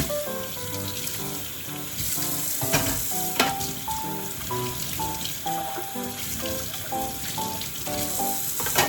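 Food sizzling in a frying pan, a steady hiss, with a few sharp taps of a utensil against the pan.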